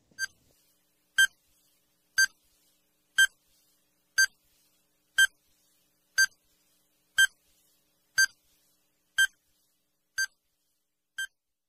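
Quiz countdown-timer sound effect: a short electronic beep once a second, twelve in all, the last two fainter.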